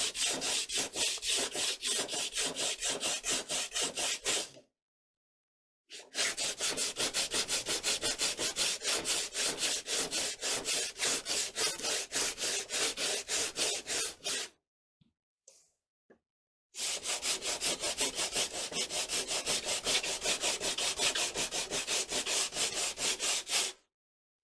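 Hand sanding: quick, even back-and-forth scraping strokes of abrasive on a rod-building part, in three runs separated by short pauses.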